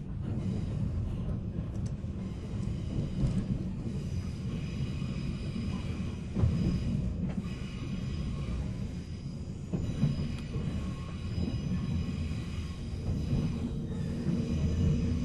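Running noise of a 485-series electric multiple-unit motor car (MoHa 485-3054) heard from inside the car. A steady rumble of wheels on rail, with a couple of knocks from the track and a faint whine that rises near the end.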